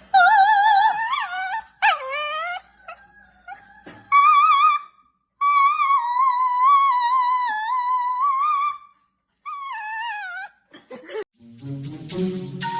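A puppy howling in a run of long, high, wavering howls, the longest held for about three seconds. Background music starts again near the end.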